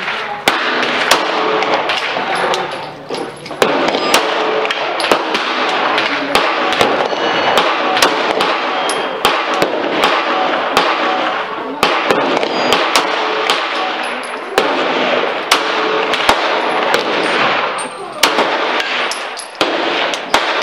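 Glock 17 9mm pistol firing single shots every one to two seconds, with many fainter sharp cracks between them over a steady noisy background.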